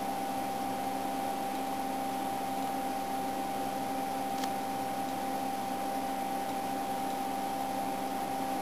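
Steady whirr of cooling fans in bench electronic test equipment, with a constant whine. One faint click comes about halfway through.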